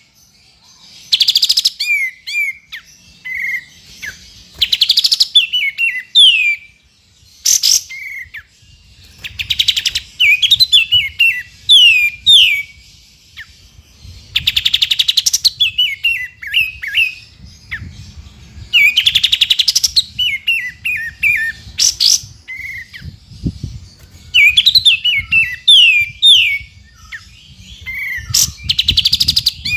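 Olive-winged bulbul (kapas tembak) calling over and over: short, harsh rattling trills alternating with quick runs of descending whistled notes, a phrase every few seconds.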